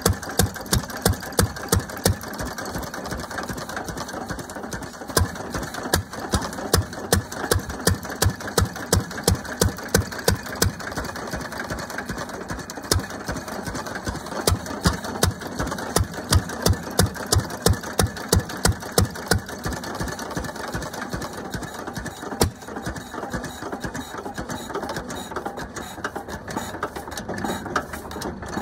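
Fairbanks-Morse Model Z single-cylinder stationary engine running. It fires in runs of loud exhaust beats, about four a second, with quieter stretches of lighter mechanical ticking between the runs.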